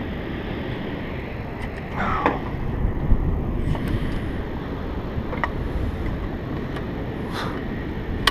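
Steady wind and moving river water on an open aluminum fishing boat. A few light knocks and clicks come from gear being handled in the boat, the sharpest about three seconds in.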